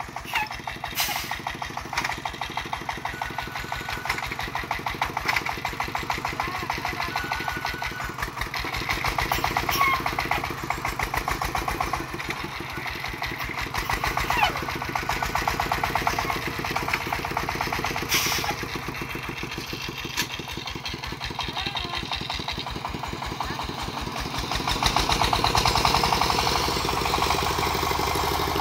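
Single-cylinder diesel engine of a công nông farm truck running with a steady, rapid chugging, with a few sharp clanks. It runs louder for a few seconds near the end.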